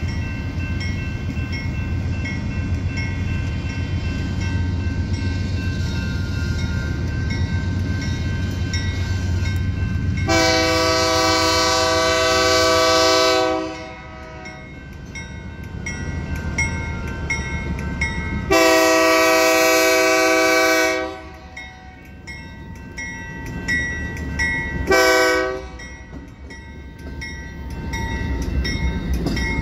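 BNSF GE Dash 9 diesel locomotive's Nathan K3LA three-chime air horn blowing the grade-crossing signal: two long blasts, then a short one near the end. For the first ten seconds only the low rumble of the approaching locomotive is heard, and a crossing bell dings steadily underneath throughout.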